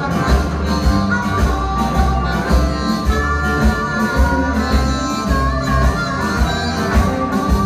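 Live blues band playing with a steady beat, about two low pulses a second: a harmonica plays held notes into the microphone over electric and acoustic guitars and drums.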